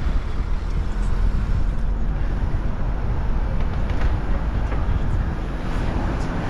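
Steady road and engine rumble of a camper van on the move, heard from inside.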